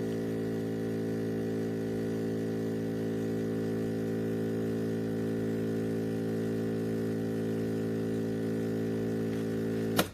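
Espresso machine running with a steady electric buzz, which cuts off abruptly with a click near the end.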